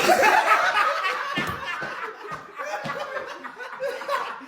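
People laughing, loudest at the start and then going on in snickers and chuckles.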